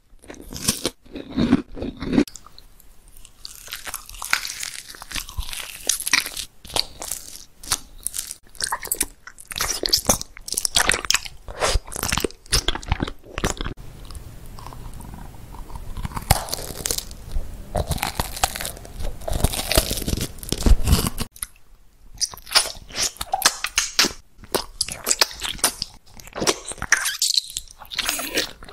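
Close-miked mouth sounds of someone eating: bites and crunchy chewing, with many sharp, crackly crunches and brief pauses between mouthfuls.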